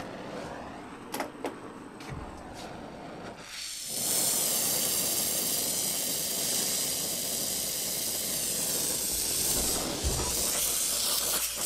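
Gas torch flame hissing as it heats a metal part for brazing. A softer hiss with a few light clicks, then the flame is turned up about four seconds in and runs as a loud, steady hiss.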